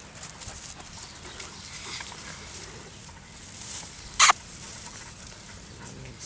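Rosemary branches rustling and scratching as Rottweiler puppies push and play through the bushes, with one short, sharp, loud sound about four seconds in.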